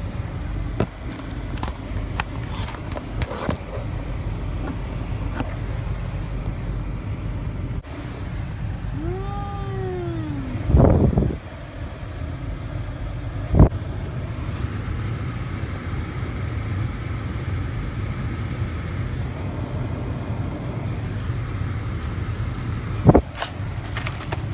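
Car engine and road noise, a steady low rumble heard inside the cabin, with a few knocks and a short tone that rises and then falls about ten seconds in.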